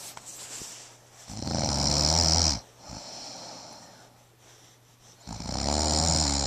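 Snoring: two long, loud snores about four seconds apart, with softer breathing between them.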